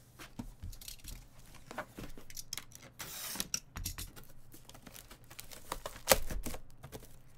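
Shrink-wrapped cardboard trading-card boxes being handled and stacked: the plastic wrap crinkles and rustles, with scattered scrapes and taps, and one loud knock about six seconds in as a box is set down.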